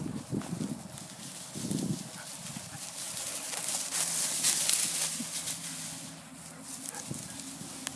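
Tall dry grass swishing and crackling as a person wades through it on foot, loudest about halfway through.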